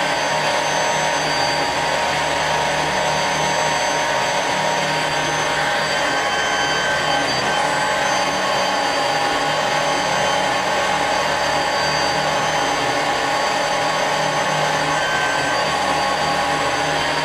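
Mazak CNC lathe milling a hex into a shaft with a ball endmill in a right-angle live-tool holder, with coolant on: a steady machining noise with several high, whining tones over an even hiss.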